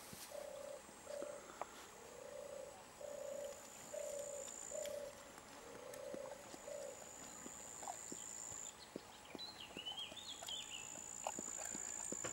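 Faint animal calls: a low, smooth hooting note repeated about ten times over some six seconds. Near the middle a bird gives a brief high twitter.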